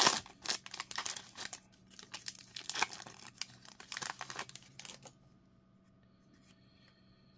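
Foil-lined Topps Chrome baseball card pack wrapper crinkling and tearing as it is ripped open and the cards are slid out. The rustling stops about five seconds in.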